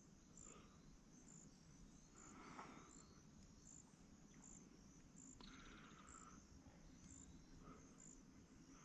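Faint insects chirping steadily in a high, even rhythm, roughly twice a second, with a few short, harsh, scratchy calls of great blue herons now and then.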